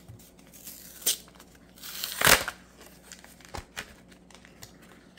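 Plastic packaging of a Pokémon card promo pack crinkling and tearing as it is opened by hand, with the loudest crackle a little over two seconds in.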